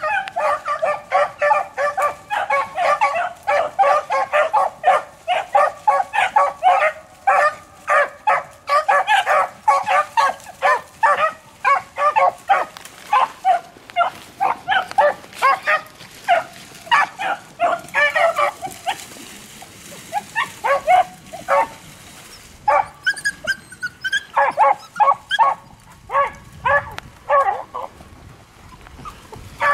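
A pack of beagles baying while running a rabbit's trail: many short calls in quick succession from several dogs, dense at first, thinning to a lull about two-thirds of the way through, then picking up again.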